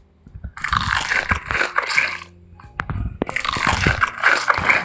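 Close-up crunching of a person biting and chewing candied chicken, in two bouts of about a second and a half each with a short pause between.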